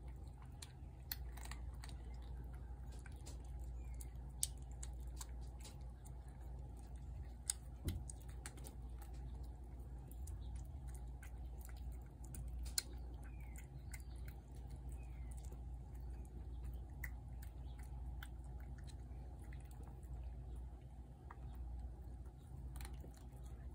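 Cats chewing wet food from plates: scattered soft clicks and smacks over a steady low hum.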